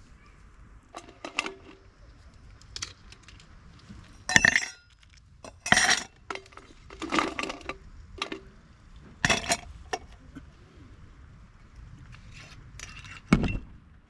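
Camp dishes and cookware clinking and knocking as they are handled, in about seven separate sharp clinks and clatters spaced a second or two apart.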